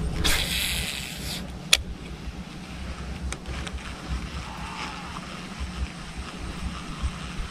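A cast with a baitcasting reel: line hisses off the spool for about a second, followed by a single sharp click. After that comes a steady low rumble of wind on the microphone.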